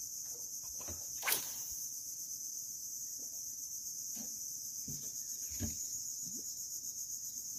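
Steady high-pitched chorus of insects buzzing from the mangrove shore. There is one sharp click about a second in, and a few faint knocks later.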